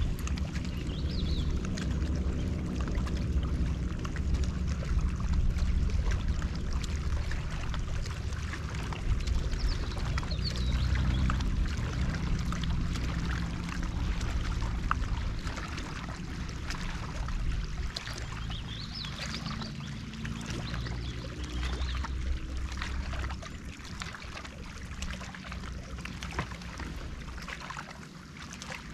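Water lapping and trickling against the hull of a small pontoon fishing boat, over a steady low rumble.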